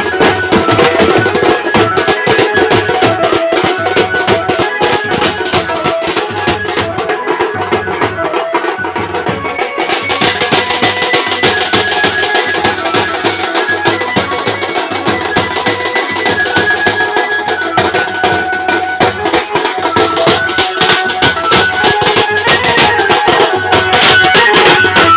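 A village street band playing dance music: fast, dense drumming on side drums over a steady bass-drum beat, with an electronic keyboard melody played through a horn loudspeaker.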